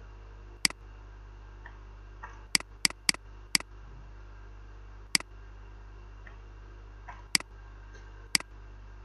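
Computer mouse clicks: about eight sharp single clicks at uneven intervals, several bunched together around the three-second mark, over a steady low electrical hum.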